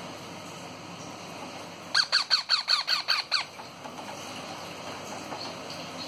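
Baby Indian ringneck parakeet giving a quick run of about nine harsh squawks, each dropping in pitch, starting about two seconds in and lasting about a second and a half.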